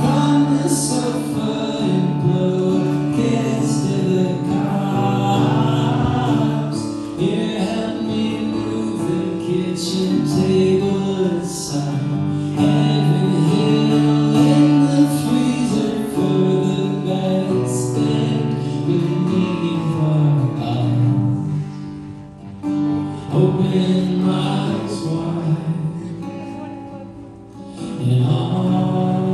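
Live solo acoustic performance: a man singing with his acoustic guitar, amplified through a PA in a large hall.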